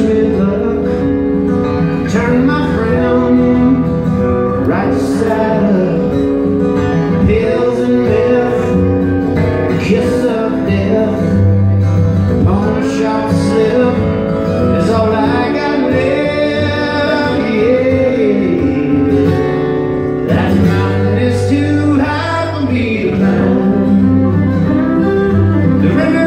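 Live acoustic band music: two acoustic guitars strumming and picking, with a fiddle and a man singing over them.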